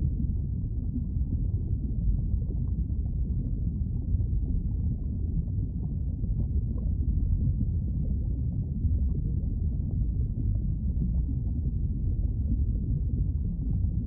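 Lava river sound effect: a steady deep rumble of flowing lava, with faint crackles scattered through it.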